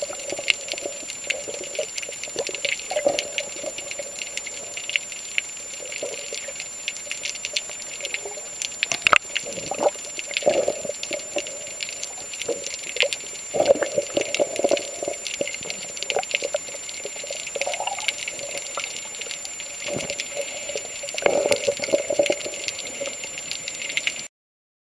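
Underwater water sound: bubbling and gurgling in irregular bursts over a steady crackle of fine clicks and a steady high whine. It stops abruptly near the end.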